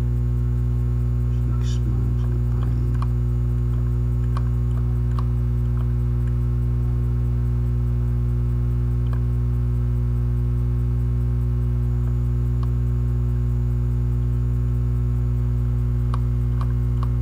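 Steady electrical mains hum with its overtones, interrupted by a few scattered faint clicks.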